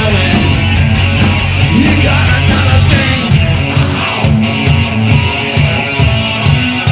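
A live rock band playing loud, with electric guitar, bass guitar and drums and men singing into microphones; about halfway through, the deepest bass thins out.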